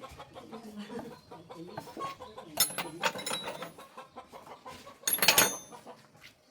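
Chickens clucking close by. There are two loud, sharp metallic clanks with a ringing tail, one about two and a half seconds in and a longer one about five seconds in.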